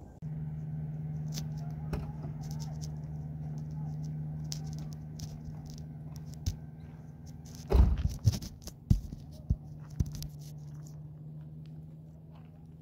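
Peugeot 405 sedan idling with a steady low hum. A car door is slammed shut about eight seconds in, the loudest sound, followed by a few lighter knocks.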